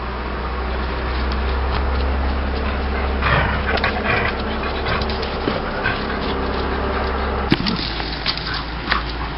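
A dog whimpering, with a few short sharper sounds about three to four seconds in and near the end, over a steady low hum.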